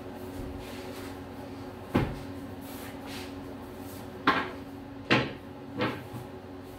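Four sharp knocks during a wooden staff form, the second and third the loudest, over a steady low hum.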